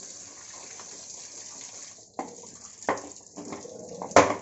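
Water running steadily with a hiss. From about two seconds in, it is joined by a run of sharp knocks roughly every two-thirds of a second, each with a brief ringing tail.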